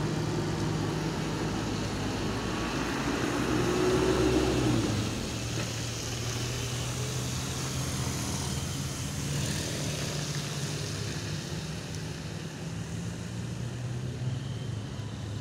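Road traffic: vehicle engines running and passing, with a steady low engine hum throughout and one vehicle passing loudest about four seconds in.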